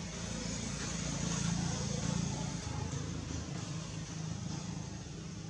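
Steady low rumble with an even hiss of outdoor background noise, swelling slightly about a second in, with no distinct calls or knocks standing out.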